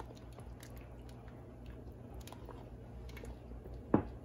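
Silicone spatula stirring thick sambar in a stainless steel pot: soft wet squelching and scraping over a low steady hum, with one sharp knock about four seconds in.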